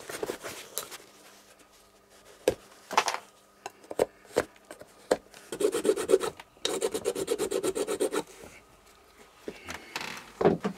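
Hand rasp scraping the worn heel of a leather shoe, in scattered strokes and then a quick, even run of strokes a little past the middle. It is roughening and levelling the worn heel to take a glued-on replacement top lift.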